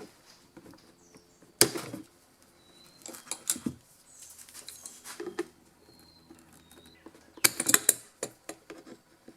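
Hands working a plastic strain relief bushing out of a space heater's cord opening: scattered clicks, scrapes and knocks of plastic parts, with the loudest rattle of clicks near the end.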